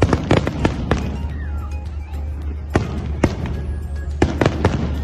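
Fireworks display: a string of sharp bangs and pops at irregular intervals, bunched in clusters, over music playing steadily underneath.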